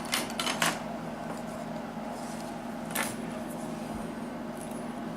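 Small metal clicks and clinks as loose lock pins and parts are handled: a quick cluster of four near the start and one more about three seconds in, over a steady low hum.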